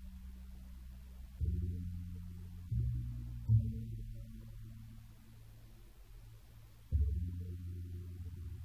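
Deep, low bass notes of a slow instrumental score. A few notes start suddenly and fade away over a second or two, with a low hum between them.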